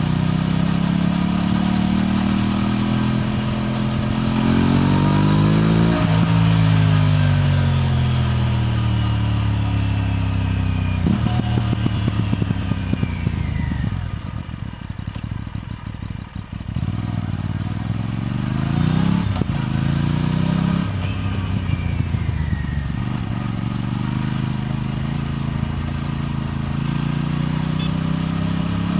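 Aprilia RS457's parallel-twin engine and exhaust while riding. It accelerates in pitch with a drop at each upshift, then rolls off with the pitch falling and crackling pops on the overrun near the middle, and pulls through the gears again.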